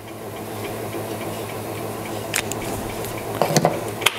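Mini lathe running steadily with a low hum as a brass rod spins in its chuck. A few light clicks and taps come about halfway through and near the end.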